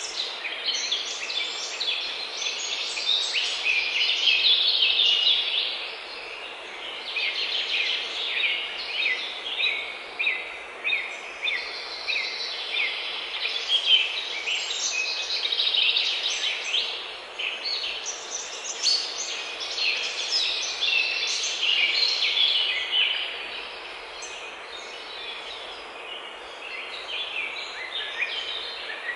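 Several songbirds singing over one another: a dense, unbroken stream of high chirps and trills that swells and eases every few seconds, over a faint steady background hiss.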